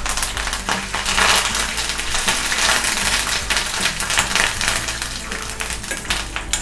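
Curry leaves and peanuts sputtering and crackling in hot oil in a steel kadai, a dense run of small pops. A steel spatula stirs them through the pan from about halfway.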